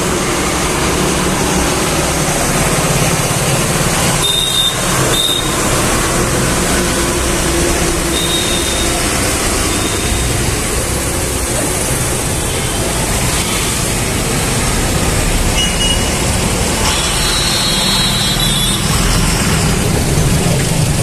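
Heavy truck engines running in street traffic: a steady low drone under constant road noise. A few brief high-pitched tones sound about four to five seconds in and again around three-quarters of the way through.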